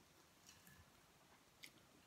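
Near silence with faint eating sounds: a person eating by hand, with two soft, sharp clicks, about half a second in and near the end.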